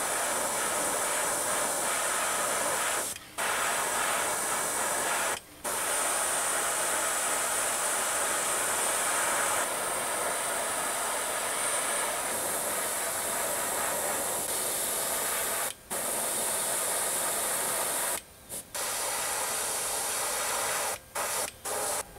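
Gravity-feed airbrush spraying paint: a steady hiss of air and atomised paint, broken by brief pauses about eight times, with several short stops close together near the end.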